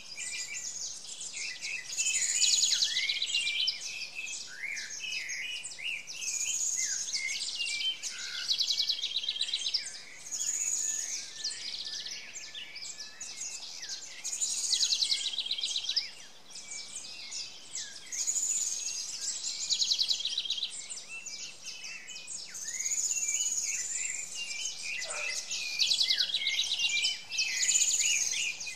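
Forest songbirds singing: a high-pitched phrase of whistles and fast trills repeated about every four seconds, with scattered chirps from other birds between.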